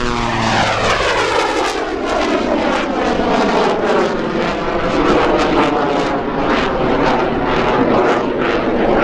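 The Screamin' Sasquatch jet Waco biplane's Pratt & Whitney R-985 nine-cylinder radial engine and propeller, together with its belly-mounted General Electric CJ610 turbojet, running loud and steady. Its pitch falls as it passes at the start, then it climbs steeply away.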